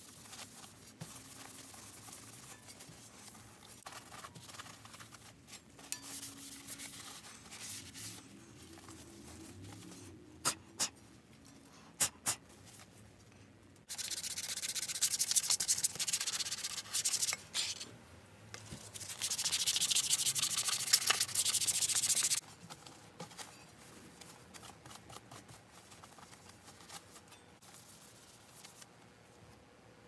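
A cloth rag rubbing over a curved, black-painted sheet-metal boiler plate, wiping on a second coat of paint. The rubbing is loudest in two stretches of a few seconds each past the middle, with a few sharp clicks shortly before them.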